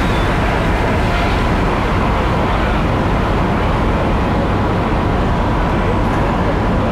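Fire apparatus engines running steadily to pump water to two aerial ladder pipes: a constant low rumble with a rushing hiss over it and no breaks.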